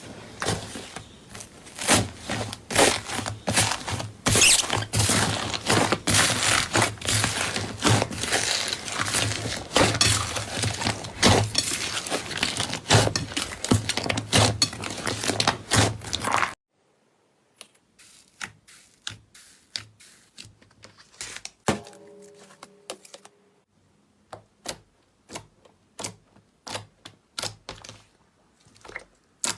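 Slime being squeezed and worked by hand, giving dense crackling and popping clicks. About halfway through this stops suddenly and gives way to quieter, scattered pops and clicks.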